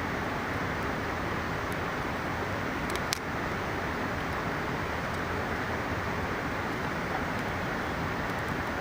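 Steady rush of a mountain river, with a few sharp crackles from a small wood campfire, the loudest pair about three seconds in.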